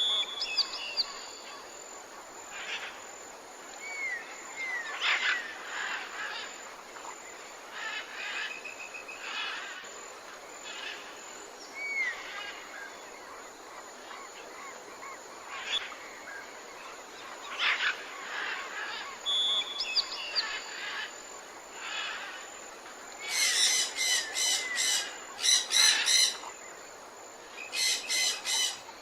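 Several birds singing and chirping in a morning chorus: short whistled phrases and slurred notes come every second or two, over a steady soft background hiss. A louder burst of fast, rapid notes comes twice near the end.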